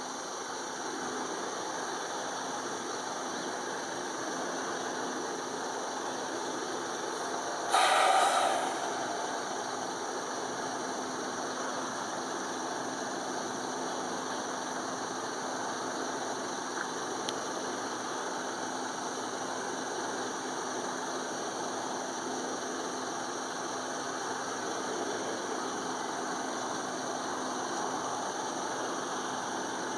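Steady engine drone under an even background hiss, with one loud, brief sound about eight seconds in.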